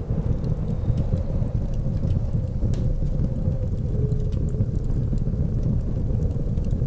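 Steady low rumble of blizzard wind with scattered small crackles of a wood fire.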